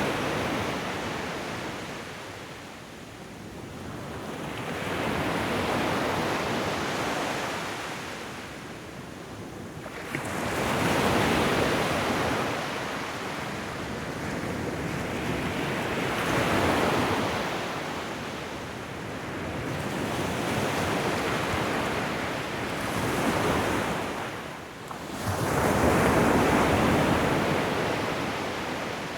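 Ocean waves breaking and washing up a shore, each surge swelling and then fading back, about every five seconds.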